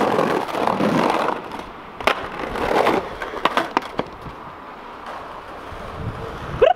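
Skateboard wheels rolling over paving stones, with several sharp clacks and knocks of the wooden board striking the ground.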